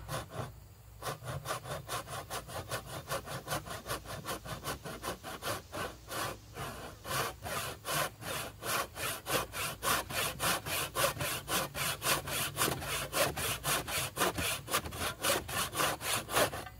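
Hand backsaw with a brass back cutting through wood in quick, even strokes, about four a second. The strokes pause briefly about half a second in and again about six seconds in.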